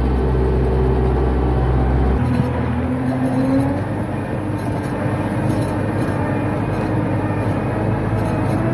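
Tractor diesel engine running steadily under load while pulling a plough, heard from inside the cab. The low engine note changes about two seconds in.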